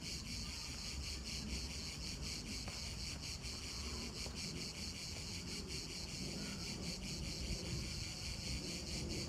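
Cicadas singing in a steady, high-pitched buzzing chorus, over a low, unsteady rumble.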